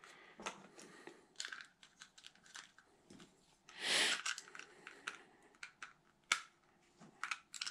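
Light handling noises: small clicks and plastic rustles as gear is taken out of a pouch, with one brief louder rustle about four seconds in.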